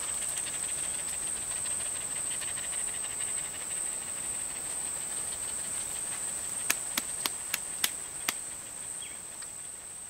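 Insects in tropical brush keeping up a steady, high-pitched buzzing drone, with a faster ticking chorus underneath in the first half. About seven seconds in come six sharp clicks in quick succession, and the whole sound fades out near the end.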